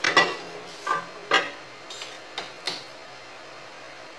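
Metal kitchen tongs clacking and knocking against dishes: about six sharp clicks, the loudest at the start and about a second and a third in.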